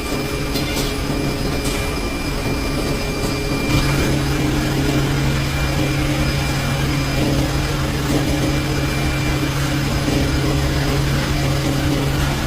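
A machine running with a steady hum and whir; the low hum grows stronger about four seconds in.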